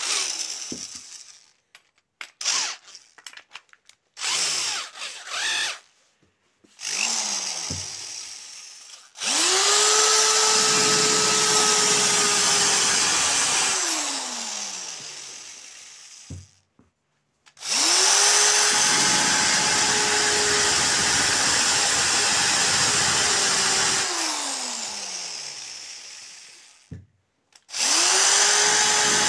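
Cordless drill with a diamond-coated tube bit drilling glass. After a few clicks and brief spin-ups, the motor runs three long times: each time it spins up quickly, holds a steady whine under a grinding hiss for several seconds, then winds down slowly.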